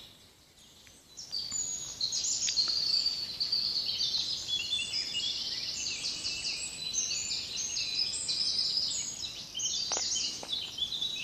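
Many songbirds singing at once, a dense overlapping chorus of high chirps and trills that swells in after a brief lull about a second in.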